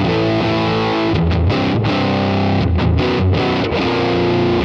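Semi-hollow electric guitar on its bridge pickup, played through a Kemper Profiler amp profile with the Plexi Bright tone stack and high gain. Distorted chords ring out loudly with a very full, huge bass low end.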